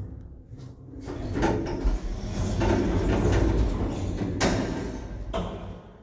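Automatic sliding doors of a passenger lift opening: several seconds of rumbling door travel, with two sharp knocks near the end.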